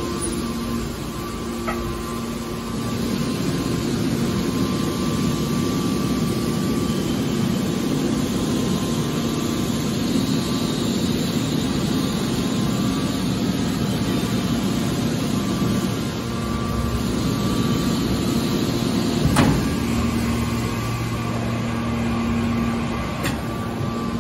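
Scrap steel baler's hydraulic machinery running with a steady hum, with one sharp knock about three-quarters of the way through.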